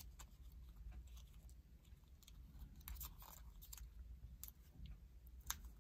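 Faint crinkling and small crackles of folded colored origami paper being unfolded and worked between the fingers, with a sharper crackle near the end.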